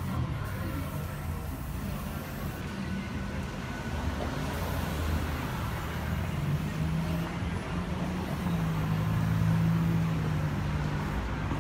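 Street traffic with a motor vehicle engine running, a steady low hum that shifts in pitch a few times.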